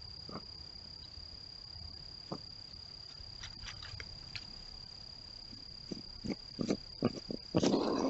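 Night insects, crickets or katydids, trilling in one continuous high steady tone. Scattered short clicks and rustles join it, with louder rough noises about two-thirds of the way in and near the end.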